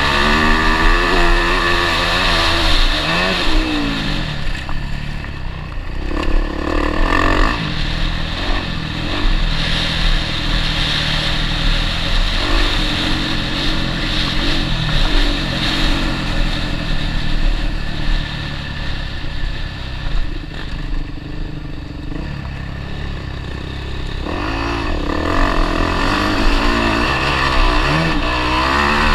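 Motocross bike's engine heard from the onboard camera during a ride, its pitch repeatedly rising and falling as the throttle opens and closes, with the strongest sweeps near the start and again near the end.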